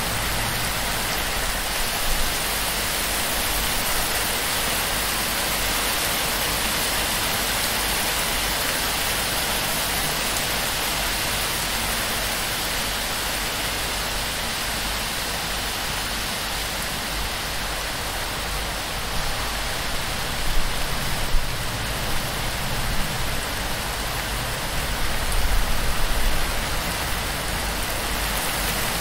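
Heavy, torrential rain beating steadily on a palm-thatch roof and streaming off its fronds. There are a few brief louder low bumps about two-thirds of the way through.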